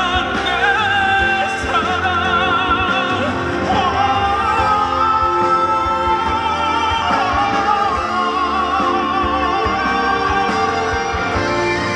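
Live ballad performance: a male vocalist holds long sung notes with a wide vibrato over band accompaniment.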